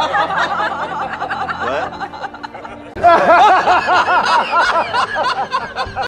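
Loud laughter in quick 'ha-ha-ha' runs. One bout tails off about two seconds in, and a second bout starts suddenly about a second later.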